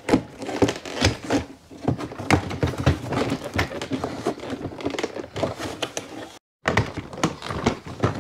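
Plastic door trim panel of a 2015–2019 Silverado/Sierra pickup being pulled off the door by hand: its retaining clips pop loose in an irregular run of sharp clicks, snaps and knocks, with the panel rattling against the door. The sound cuts out for a moment about six and a half seconds in.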